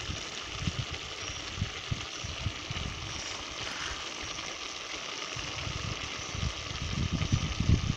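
A pot of potatoes and kale simmering with a steady hiss, under low, irregular rumbling knocks that come more often near the end.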